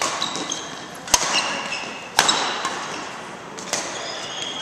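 Badminton rally: three sharp cracks of rackets striking the shuttlecock, about a second or so apart, with short high squeaks of sneakers on the court floor in between.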